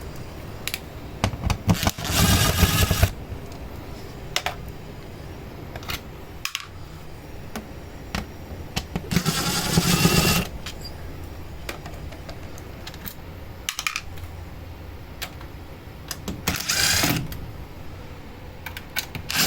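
Scattered clicks and handling knocks on hardware, with three short whirring bursts from a small motor, each about a second long.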